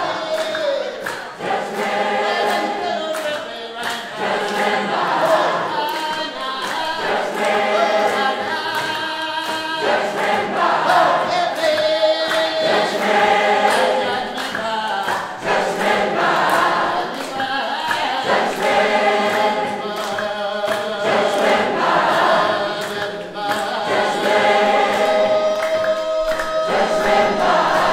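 Large group of men and women singing together in chorus, accompanied by hand clapping.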